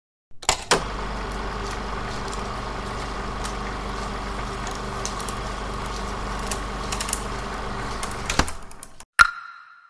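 Sound effect of a movie camera's motor running: a couple of clicks as it starts, then a steady mechanical whir with a low hum that cuts off suddenly about eight seconds in. A sharp plucked note follows near the end.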